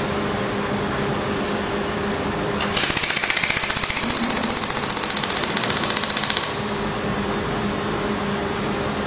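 Lamp-pumped pulsed laser welder firing a rapid train of shots, about fifteen pulses a second, for roughly four seconds starting near the three-second mark, each shot a sharp snap with a high whine over it. A steady low machine hum runs before and after the burst.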